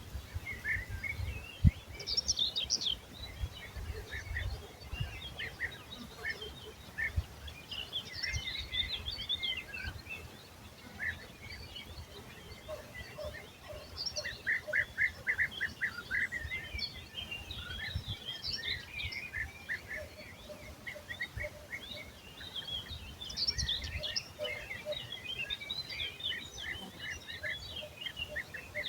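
Several songbirds singing and calling over one another in short high chirps and trills, including a fast trill about halfway through. An uneven low rumble runs beneath them.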